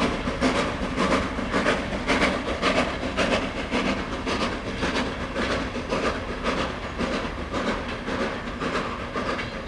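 Goods wagon wheels clattering over rail joints in a steady rhythm of about two beats a second, slowly growing fainter as the train rolls away.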